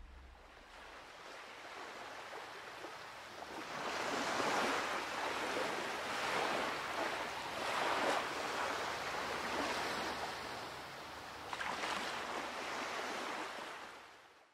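A rushing noise with no pitch, swelling and fading several times in slow surges, then fading out at the end.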